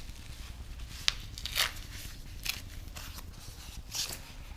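Bubble-wrap bag and foam packing sleeve rustling as they are handled and opened, with a few short sharp crackles about a second apart.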